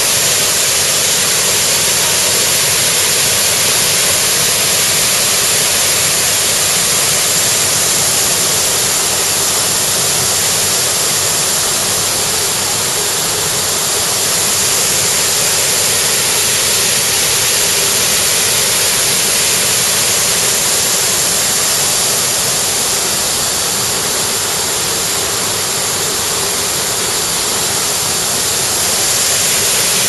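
Waterfall cascading over broad rock ledges into a pool: a steady, loud rush of water.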